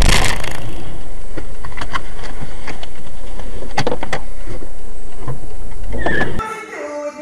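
Car driving on a rough road, heard through a dashcam's microphone: loud steady road and engine noise with scattered knocks and rattles, and a loud rush of noise at the very start. About six seconds in it cuts off and music with woodwind-like tones takes over.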